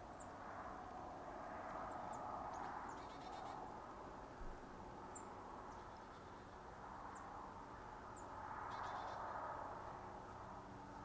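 Quiet country ambience: small birds giving short, high chip calls every second or two, with a couple of brief rapid chattering bursts, over a soft hiss that swells and fades.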